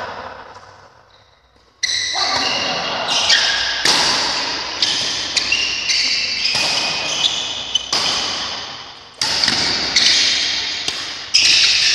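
A badminton doubles rally: rackets striking the shuttlecock in a string of sharp hits about every second or so, starting about two seconds in, each hit ringing on in the large hall.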